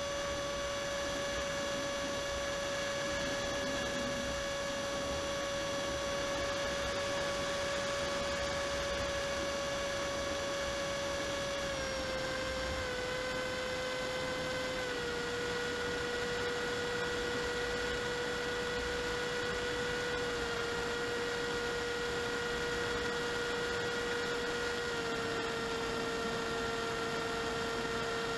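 Steady whine of an AXN Floater-Jet FPV plane's brushless electric motor and propeller, heard from its onboard camera. The pitch drops in small steps several times in the second half as the throttle is eased back.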